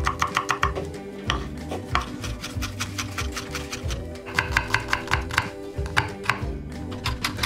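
Chef's knife chopping on a wooden cutting board, mincing garlic and then slicing a red onion. The strokes come in quick runs of about six a second with short pauses between runs, over background music.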